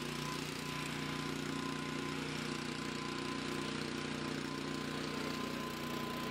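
Flymo hover mower's small petrol engine running steadily at constant speed while mowing, with a thin steady whine above the engine note.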